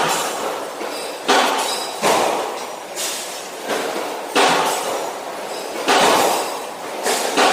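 Repeated sharp knocks, each struck hard and then ringing and fading out, about every one to one and a half seconds, echoing in a large hall.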